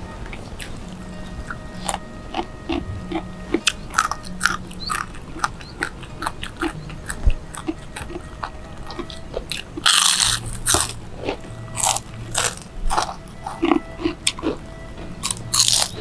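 People eating crunchy food by hand: repeated crisp bites and chewing crunches, with a loud burst of crunching about ten seconds in and another near the end.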